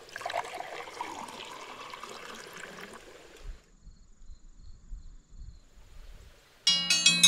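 Water running or splashing for about three and a half seconds, then it stops and it goes nearly quiet. Near the end, music with bell-like tones starts abruptly.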